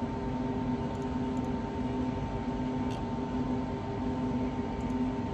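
Steady mechanical hum with a few steady tones mixed into a constant noise, the background drone of running equipment or ventilation.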